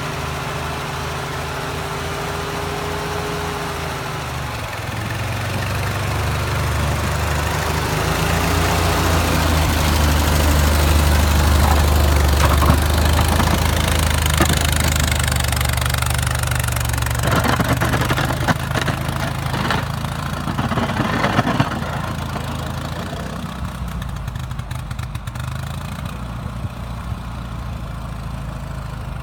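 1950 Ford 8N tractor's four-cylinder flathead engine running under load while plowing snow. The engine note grows louder a few seconds in, then eases off, with a spell of clattering about two-thirds of the way through.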